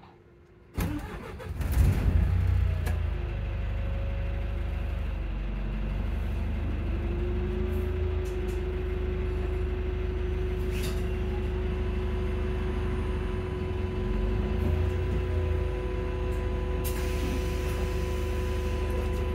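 Volvo hybrid bus's diesel engine starting about a second in, then settling into a steady idle with a low drone. A thin steady whine comes in partway through. Heard from inside the bus.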